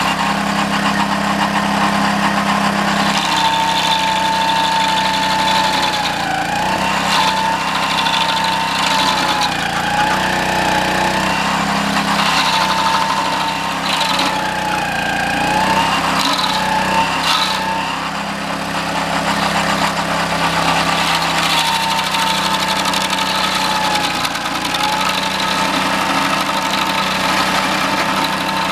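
Homemade stump grinder's 6.5 hp Honda single-cylinder engine running steadily, with a whine from the geared 20-inch toothed cutting wheel. The whine dips in pitch several times as the wheel bites into a green pine stump, with a few sharp hits.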